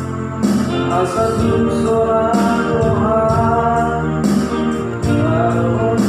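A person singing to their own electronic keyboard accompaniment: held chords and a steady drum beat about twice a second under the sung melody.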